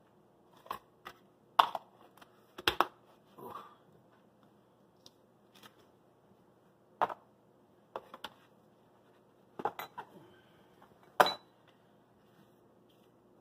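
Scattered sharp knocks and clicks of small objects being picked up and set down on a kitchen countertop: about a dozen taps and clatters with quiet stretches between, the sharpest near the start and about eleven seconds in.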